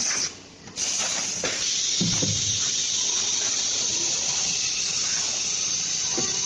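CNC machine running, a steady hiss like a spray, with a brief sharp drop-out just after the start.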